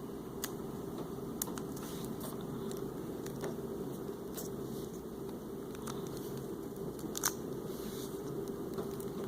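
Plastic trays of two adjustable snoring mouthpieces being handled and fitted together, an upper tray onto another's lower tray: scattered small clicks and taps, the clearest about seven seconds in, over a steady low background hum.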